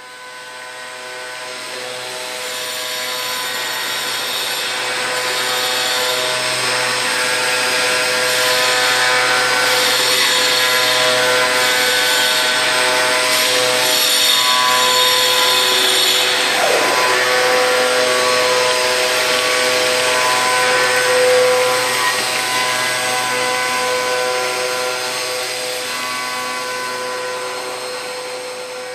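Milling spindle on a robot arm cutting marble under water coolant spray: a steady whine of several pitched tones over a gritty hiss. A short falling tone sounds a little past the middle; the sound fades in at the start and fades out near the end.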